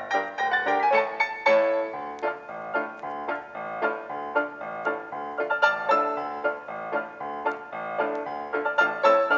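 Background piano music, a steady run of many quickly struck notes.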